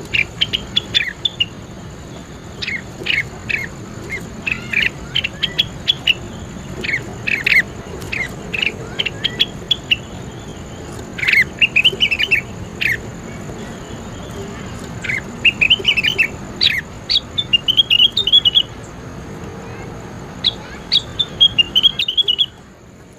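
Leafbird song: bursts of quick sharp chirps and short warbled phrases with brief pauses between them, over a faint steady high whine. It stops abruptly just before the end.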